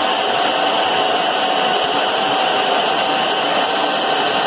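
Climax BB5000 portable boring bar running steadily, its carbide bit taking a heavy facing cut on a steel excavator bucket ear. The sound is a steady hiss with a constant high whine through it, a cut close to the edge of chatter that could break the carbide.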